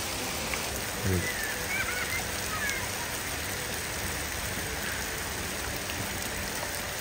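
Steady patter of rain mixed with small hailstones.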